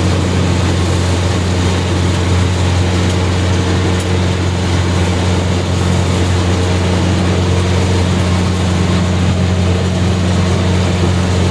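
Heavy diesel engine of a farm machine running steadily under load, an unbroken low drone with a constant hum.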